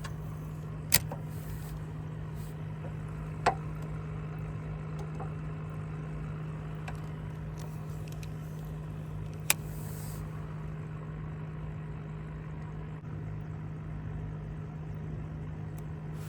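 A steady low electric motor hum runs throughout, with three sharp clicks: one about a second in, one a few seconds later and one past the middle.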